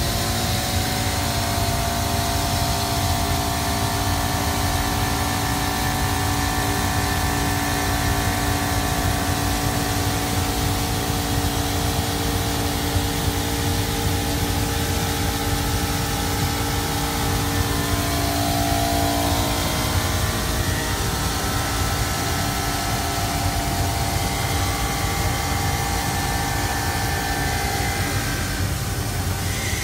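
CNC stone machining center's spindle running a tool along the edge of a marble countertop under a water-coolant spray: a steady machine whine of several pitches over a constant hiss of water and grinding.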